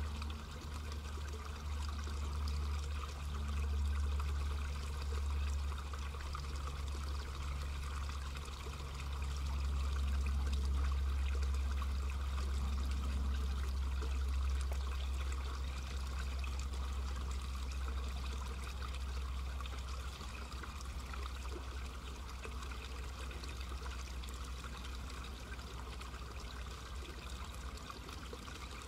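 Low, steady rumble of an electric railcar of the Fukui Railway Nanetsu Line. A low hum drops away about twelve seconds in, and the whole sound slowly fades over the second half.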